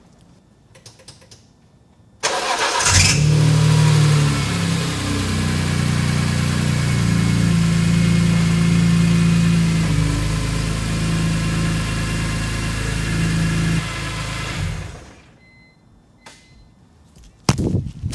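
BMW E46 M3's S54 inline-six cranked over by the starter about two seconds in, catching almost at once and settling into a steady idle, then switched off about fifteen seconds in. The engine is run briefly after an oil change so the fresh oil circulates before the level is rechecked.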